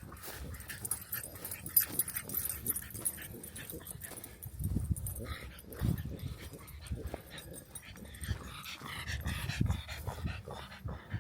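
A dog making small noises close by, with a few high, wavering whines about three-quarters of the way through, among soft low thuds.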